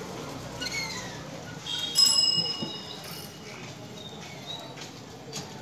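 A bicycle bell rings once about two seconds in, its metallic tones hanging for about a second.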